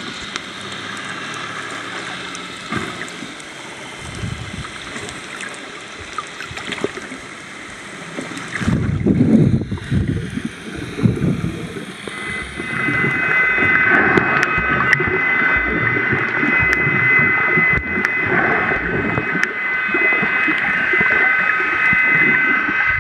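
Underwater water noise picked up by a snorkeler's camera: a steady hiss and slosh, with a loud low gurgling churn about nine seconds in. From about twelve seconds a steady high whine of several tones joins it.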